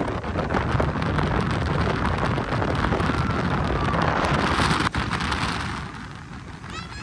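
Speedboat running at speed over open water, with heavy wind buffeting the microphone over the motor and rushing water; it drops noticeably quieter after a sudden break about five seconds in.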